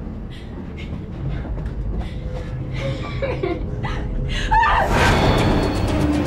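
Horror film soundtrack: a low rumbling drone with scattered knocks, then a brief rising vocal cry and a sudden loud crashing hit about five seconds in that rings on.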